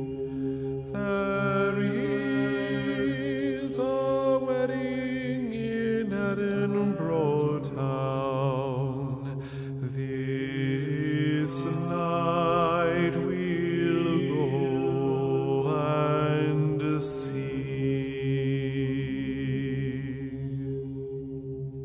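Several voices chanting long held notes, some with a wavering vibrato, over a steady low drone that holds throughout.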